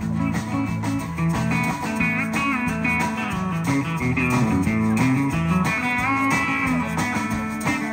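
Instrumental break in a country song: a guitar plays a melodic lead over a steady backing with a moving bass line.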